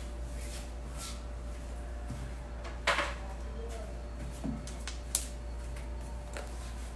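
Handling noise as a microphone is fetched and fitted to a phone: a few scattered clicks and knocks, the loudest about three seconds in, over a steady low hum.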